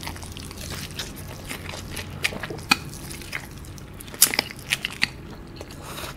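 Close-miked eating of a sauce-coated fried chicken drumstick: crisp crunching bites and wet chewing as the meat is pulled off the bone, with sharp crunches in bunches about two seconds in and again around four to five seconds.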